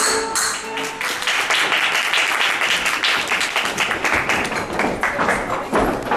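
A flamenco number ends about half a second in, and a small audience applauds, many quick claps, thinning toward the end.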